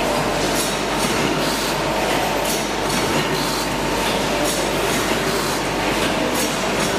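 Twin-head auger powder filling machine and can conveyor running: steady machine noise with a faint regular tick about twice a second as the cans are filled.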